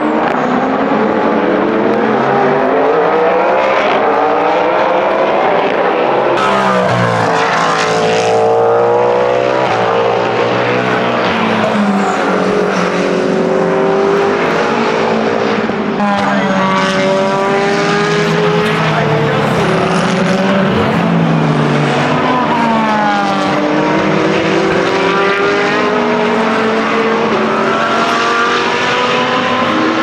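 Endurance race cars passing at speed one after another: engine notes climb through the gears in a series of rising sweeps, then drop away on braking and downshifts.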